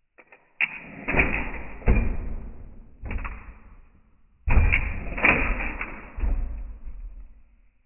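A '62 A-arm lowrider hopper bouncing on its hydraulics, the car slamming down and its rear bumper banging on the ground. A series of heavy bangs and thuds comes in groups, with a few light clicks just before the first one, two bangs about a second in, one near three seconds, then a loud run of three from about four and a half seconds in.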